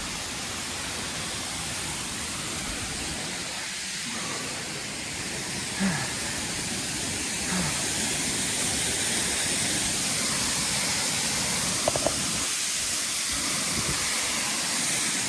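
Waterfall rushing: a steady hiss of falling water that grows a little louder about eight seconds in.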